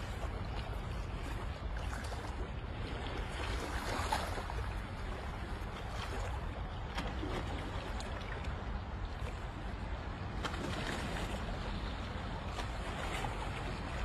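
Sea water sloshing and lapping against the boulders of a rocky shore, swelling now and then, with a steady low rumble of wind on the microphone.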